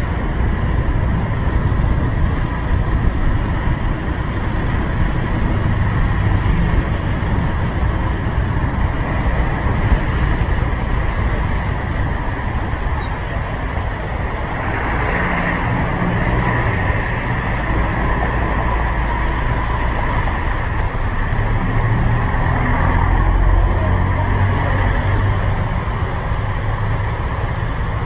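Motor scooter riding in city traffic, heard through a helmet-mounted camera: steady wind rumble on the microphone over the scooter's engine and the surrounding cars.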